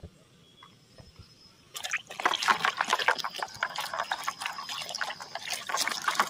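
Water splashing and sloshing in a plastic basin as a muddy toy car is scrubbed by hand. It starts about two seconds in, after a quiet start, and goes on as a dense, irregular splashing.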